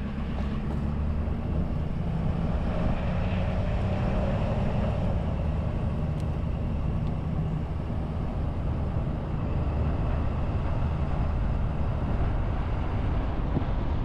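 Vehicle engine running steadily with road noise as it drives along, a constant low hum.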